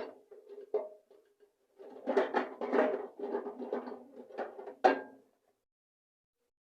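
Music with drums and knocking percussion, with a sharp hit about five seconds in, after which the sound cuts off abruptly.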